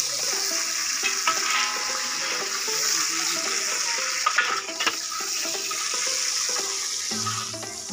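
Oil sizzling steadily in a wok of frying spices while boiled snails are scooped, dripping, out of their pot of water with a perforated metal skimmer, with splashing water and a few sharp metal clinks.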